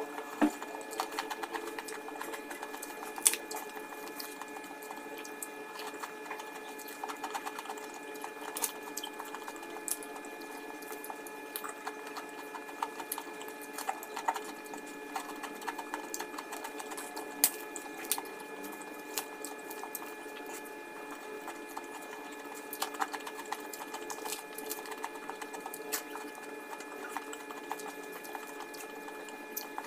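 Close-miked chewing and mouth sounds of someone eating fried rice by hand: irregular wet clicks and smacks, with fingers picking at the rice on the plate. A steady faint hum lies beneath.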